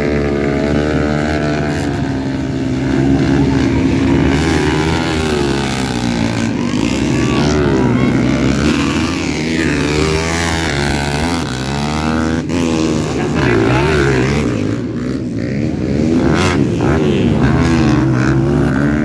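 Several 250cc four-stroke motocross bikes revving, their engine pitch rising and falling over and over as the riders work the throttle, with more than one engine heard at once.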